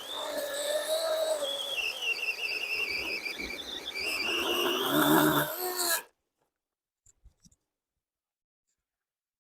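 DeWalt electric chainsaw cutting into a tree trunk. Its motor whine drops in pitch as the chain bites and rises again as the load eases, then the saw cuts off suddenly about six seconds in, followed by a few faint clicks.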